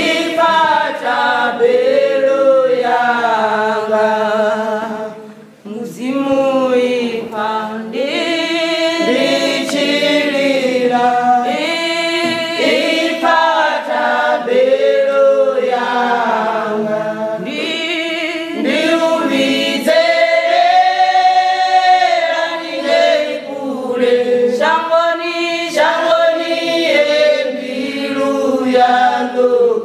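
Church choir of women's voices singing a cappella in harmony, a gospel song in Tshivenda. The singing breaks off briefly about five and a half seconds in, then carries on.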